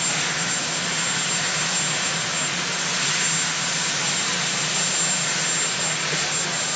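Marine One helicopter's turbine engines and rotor running steadily: a loud, even rushing noise with a constant high whine above it.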